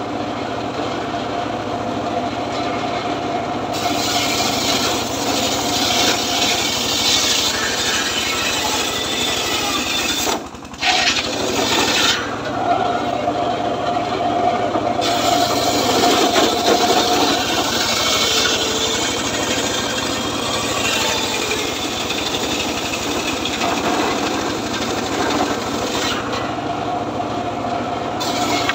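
Homemade circular saw bench ripping planks of hard, dry acacia wood, the blade grinding steadily through the cut with a short break about ten seconds in.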